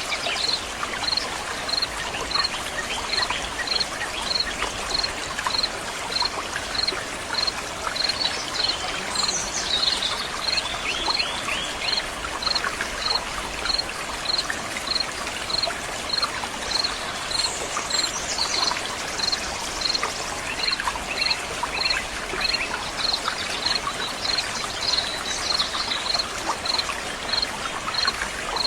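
Water flowing and trickling steadily in a stream. A high chirp repeats evenly about one and a half times a second over it, and birds call briefly a few times, about a third of the way in, midway and near the end.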